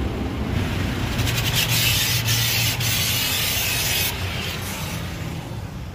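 Automatic car wash heard from inside the car: cloth brushes rub against the body over a steady low machine hum. A loud hiss of water and soap spray comes in about half a second in and stops about four seconds in.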